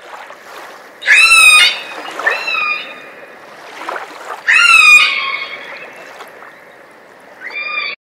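Whale calling in air: four high-pitched calls that bend in pitch, each about half a second to a second long, the last one cut off abruptly.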